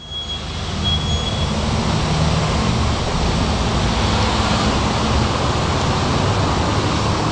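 Steady city street noise with passing traffic and a low rumble, fading up over the first second, with a faint thin high whine in the first second and a half.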